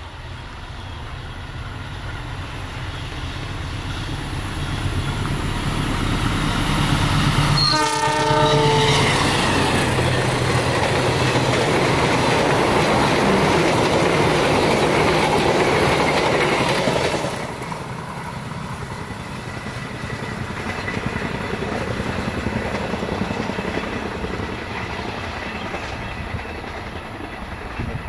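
Passenger train approaching fast and passing close, its locomotive horn sounding one blast of about a second and a half. The coaches rush past loudly and the noise drops off sharply as the last car goes by, leaving a fading rumble.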